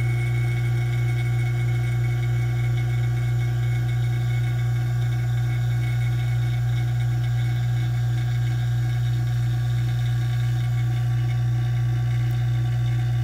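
Vacuum investing machine running with a deep, even hum while it pulls a vacuum on freshly poured investment in two casting flasks under a bell jar, degassing the plaster.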